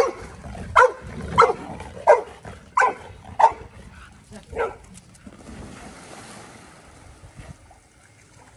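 A retriever barking seven times in quick succession, sharp single barks roughly every half second to second, then stopping about five seconds in, followed by a soft rushing noise.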